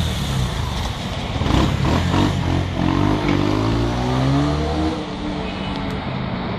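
Large tracked demolition excavator's diesel engine working under load, its pitch climbing steadily for a few seconds before dropping back about five seconds in. Rubble clatters and crashes around a second and a half to two and a half seconds in as the bucket handles debris.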